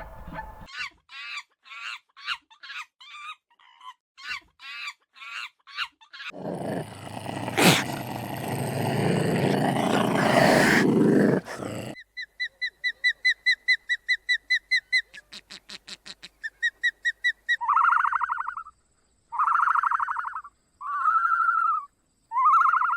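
A run of different animal calls, one after another: quick short chirps, then a long rough roar lasting about six seconds, then a fast pulsing high-pitched trill, and four separate short calls near the end.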